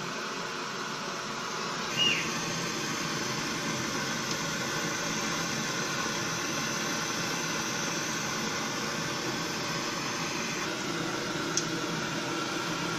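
Battered cauliflower pieces deep-frying in hot oil in a steel kadai, sizzling steadily, with a brief sharp sound about two seconds in.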